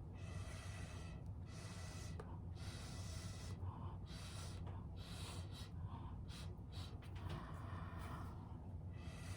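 Breath blown in short puffs through a drinking straw onto wet acrylic paint: a hissing rush repeated about eight times with brief pauses between blows.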